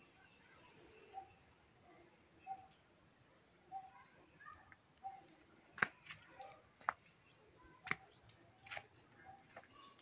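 Faint rural outdoor ambience: a bird repeats one short note about every second and a quarter over a steady high-pitched insect drone. Several sharp snaps of footsteps on dry leaf litter and twigs come in the second half and are the loudest sounds.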